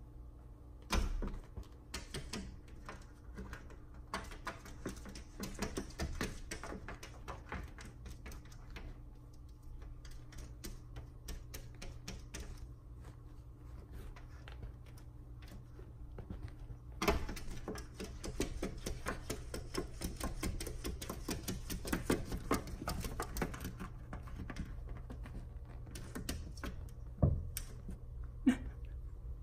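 Savannah cats' claws scratching and tapping rapidly on window glass in two long runs, with a few louder thumps of paws pounding on the glass, the loudest near the end.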